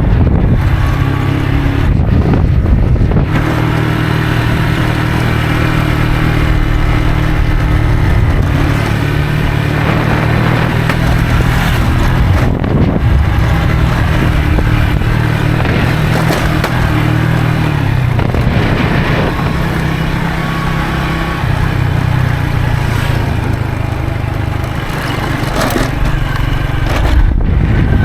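Moped engine running steadily on the move, its note dipping and rising a little, with wind rushing over the microphone.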